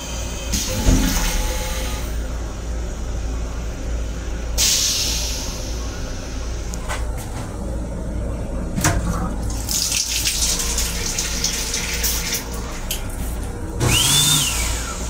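Train restroom sink faucet running in short spurts of hissing water over the steady low rumble of the M7 railcar. Near the end a louder rush comes in, with a whine that rises and falls.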